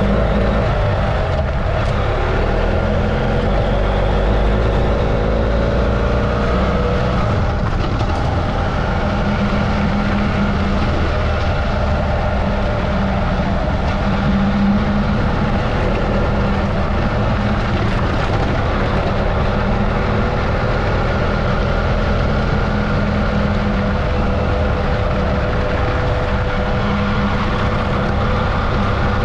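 Adventure motorcycle engine running at a steady cruising speed, its pitch drifting only slightly, over a constant low rumble of wind noise.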